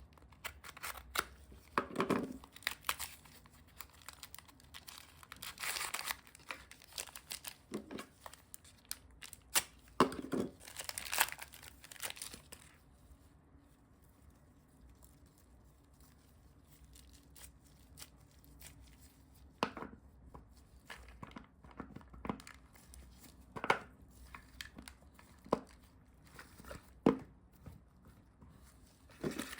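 Handling noises: irregular clicks, knocks and rustling scrapes, busiest in the first twelve seconds, then scattered single clicks.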